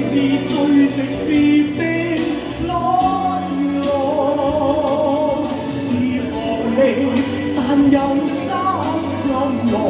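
Live pop band music with a sung or melodic lead line over sustained chords, continuing steadily.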